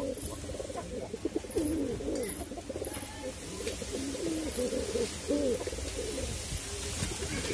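Andhra high flyer pigeons cooing, a continuous run of overlapping, gliding coos.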